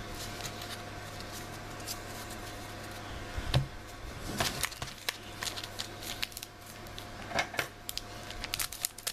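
Trading cards being handled and flipped through: quick papery rustles and small clicks of card stock, with a soft knock about three and a half seconds in, over a steady low hum.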